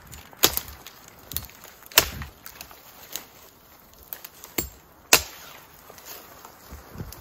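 Dead conifer branches being cracked and chopped off a tree: a string of sharp snaps and knocks, three of them much louder, near the start, about two seconds in and about five seconds in.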